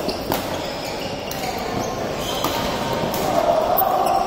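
Badminton rackets striking a shuttlecock, several sharp hits, with shoes squeaking on the court floor; a longer squeak is loudest near the end. The hits and squeaks echo in a large sports hall.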